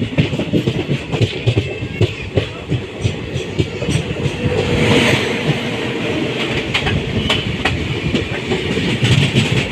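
Train running along the track, wheels clattering over rail joints with a steady low rumble. A brief higher-pitched swell of noise comes about five seconds in.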